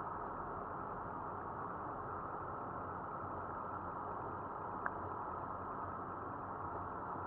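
Steady car engine and road noise heard from inside the cabin, with one short click about five seconds in.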